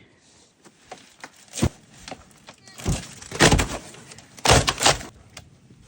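Thuds and knocks from a heavy boxed generator being handled and unpacked. A light knock comes about a second and a half in, then two clusters of loud thuds with scraping, one in the middle and one toward the end.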